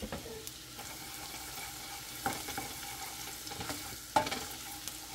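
Butter with chopped onion and black pepper sizzling steadily in a stainless steel saucepan while a wooden spoon stirs it, with a couple of light knocks, one about two seconds in and one about four seconds in.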